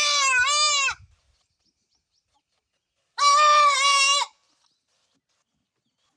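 Goat bleating loudly twice: a wavering call that breaks off about a second in, then a second, steadier call about three seconds in that lasts about a second.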